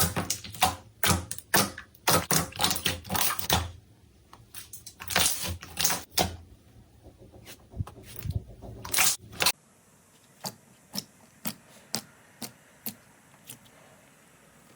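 Slime being pressed and worked by hand, a run of sharp crackling and clicking pops. About two-thirds of the way through it changes to quieter single clicks, about two a second.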